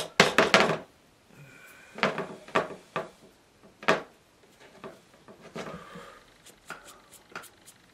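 Watercolour painting gear clinking and knocking as a brush is loaded with paint: a quick cluster of sharp knocks at the start, single knocks at about two, three and four seconds in, then fainter taps.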